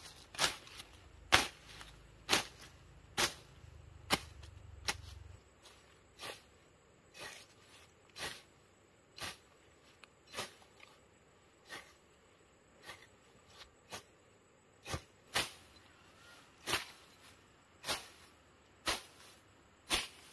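Machete blade slashing through grass and weeds with sharp cutting strikes, about one a second.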